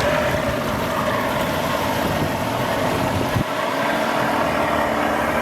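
Jet airliner's turbofan engines on landing approach: a steady loud engine noise with several held whining tones.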